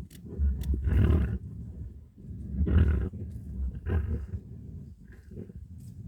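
Animals growling and snarling in a close fight with a badger, in several loud bursts under a second long.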